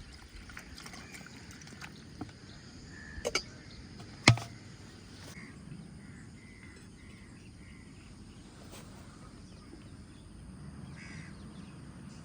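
Crows cawing now and then, with a few light clicks and one sharp knock about four seconds in, the loudest sound.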